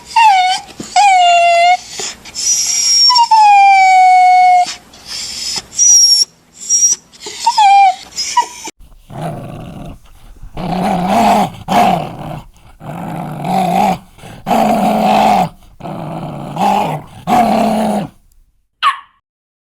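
Dog sounds in two parts. First a dog whimpering and yelping in high cries that fall in pitch. Then, after a cut, a lower, harsher dog voice in about nine bursts roughly a second apart, ending in one short call near the end.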